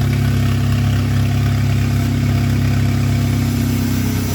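Turbocharged Chevrolet Cavalier four-cylinder engine idling steadily.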